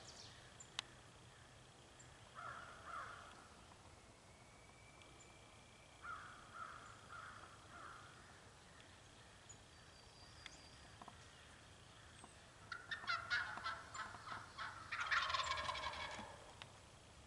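Wild turkey gobbling twice near the end, each gobble a rapid rattling run of notes. Shorter, softer calls come about two and a half seconds in and about six seconds in.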